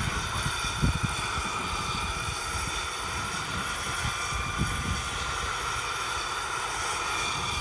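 Gas-turbine engine and rotors of a radio-controlled scale Airbus EC135 jet helicopter in flight: a steady high whine, with a low, gusty rumble underneath.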